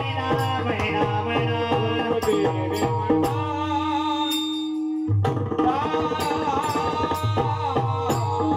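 Pakhawaj drumming in a steady rhythm under a sustained melodic line, with bright cymbal-like strokes, playing a Warkari devotional tune. About five seconds in the drumming stops under a held note, everything cuts out for an instant, then drum and melody start again.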